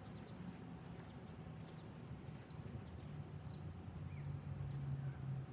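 Faint outdoor background: scattered short high bird chirps over a low, steady hum that grows louder from about halfway through.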